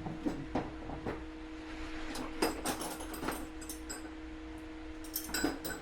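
Scattered light clicks and clinks of hand tools being handled while picking a wrench for a rusted valve-stem nut, over a steady background hum.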